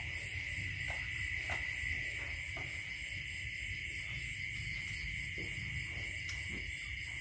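Steady, high-pitched chorus of night insects, with a low background rumble and a few faint clicks.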